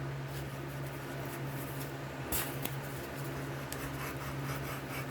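Light rubbing and faint clicks of small metal parts being handled while a snowblower auger gearbox is taken apart, with one sharper click about two seconds in, over a steady low hum.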